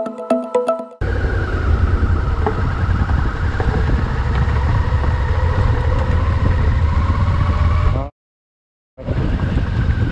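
Motorcycle engine running as the bike rides along a gravel track, under a steady low rumble of wind and road noise. Electronic music cuts off about a second in, and all sound drops out for about a second near eight seconds in.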